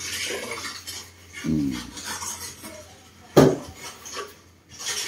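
Wooden boards being handled and rubbed against the work surface of a homemade table saw, with small clattering knocks and one sharp, loud knock about three and a half seconds in.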